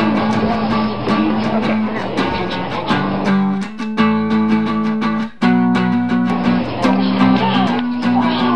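Guitar-driven music with a steady beat and strummed chords.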